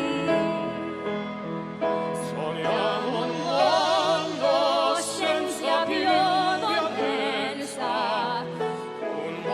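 Operatic singing with wide vibrato over a sustained instrumental accompaniment; the voice comes in about two seconds in.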